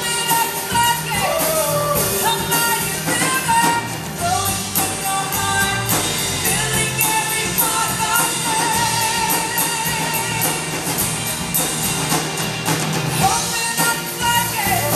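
Live contemporary worship band playing and singing: women's voices sing the melody over a full drum kit, bass, keyboard and guitars, amplified through the stage speakers and heard from the audience in the hall.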